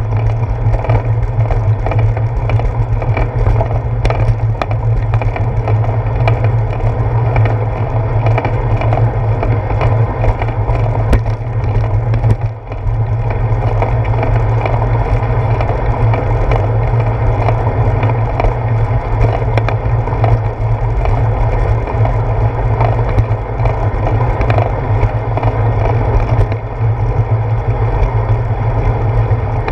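Bicycle rolling along a wet concrete path, heard through a handlebar-mounted GoPro Hero 4: a steady heavy rumble with frequent small rattling clicks from the bumps passing up through the handlebars. The noise dips briefly about twelve seconds in.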